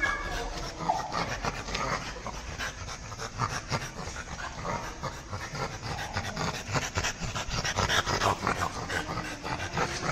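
French bulldog panting hard with its face at the wire mesh of its pen, mixed with a quick patter of small clicks and rattles.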